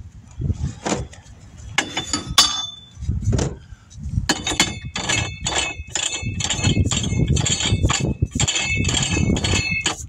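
Metal being struck repeatedly, each strike ringing, about three strikes a second, starting about four seconds in after a few scattered knocks and clinks.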